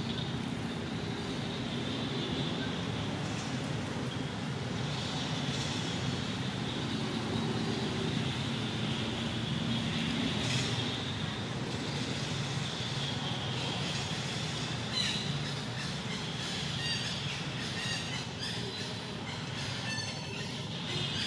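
A steady high-pitched whine over an outdoor hiss, with a macaque gnawing and tearing at the fibrous husk of a coconut; a few short crackling clicks come in the last few seconds.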